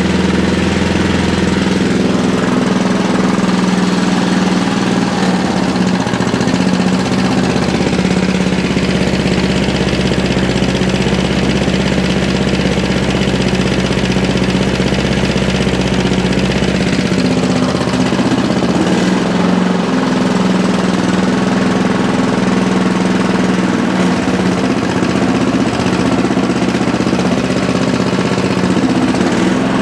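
Mountfield SV150 lawnmower engine running steadily at idle while its idle speed is set at the carburettor, the note shifting slightly about two seconds in and again about halfway through. It runs evenly, without hunting or surging.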